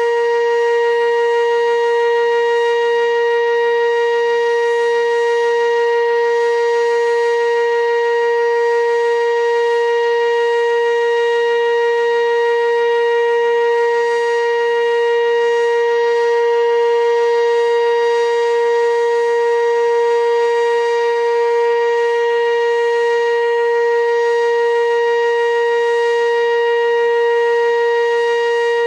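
Sentry 15V2T outdoor warning siren sounding a loud, steady tone at full speed, its pitch held level without rising or falling.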